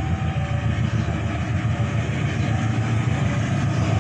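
Diesel-electric locomotive approaching with its train, its engine making a steady low rumble. Above it, a level-crossing warning alarm sounds, two tones alternating over and over.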